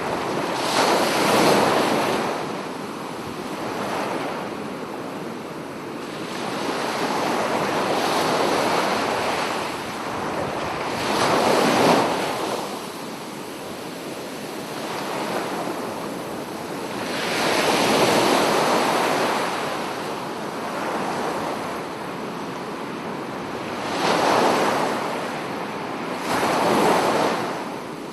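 Sea waves breaking on a beach, the surf swelling into louder surges every few seconds and falling back to a steady wash between them.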